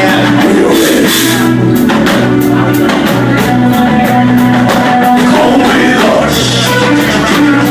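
Live band music with electric guitar and drum kit, cymbals struck steadily, and a singing voice held on long notes.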